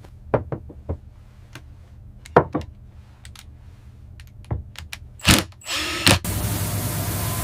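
Lifting gear clicking and clanking with a ratchet-like run of sharp metallic knocks, the loudest about five seconds in. A steady rushing noise takes over from about six seconds in.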